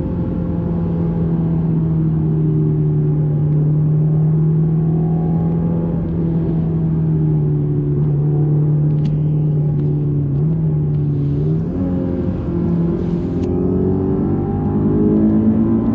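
2001 Honda S2000's 2.0-litre inline-four engine running at a steady pitch that eases slightly lower, then climbing in pitch over the last few seconds as the car accelerates.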